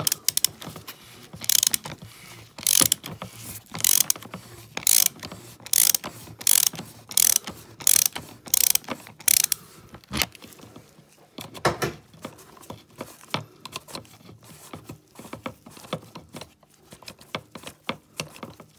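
Ratchet wrench with a 27 mm socket clicking in short bursts as it unscrews the oil filter housing cap, a loud stroke about every second for the first half, then fainter, quicker clicking.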